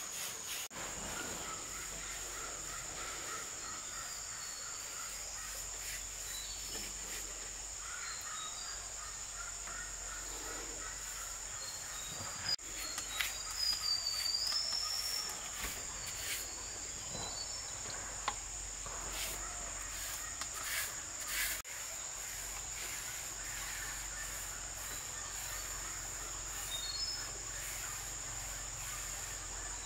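Insects calling in a steady, unbroken high-pitched drone, with a few whistled bird calls and some short knocks and clicks around the middle.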